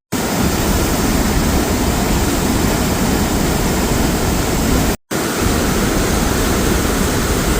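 Loud steady roar of rushing whitewater from the Merced River and Vernal Fall, an even rush with no pauses in it. It breaks off for an instant about five seconds in.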